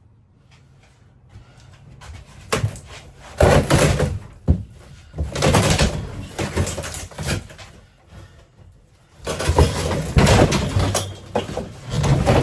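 Repeated bangs, knocks and scraping clatter of panels and fittings being pried and pulled loose during an RV interior teardown, in two loud spells after a quiet start.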